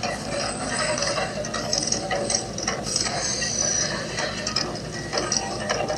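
Mirage volcano show erupting: a dense, steady crackling hiss full of small sharp pops as the fire effects burn, heard through a TV speaker.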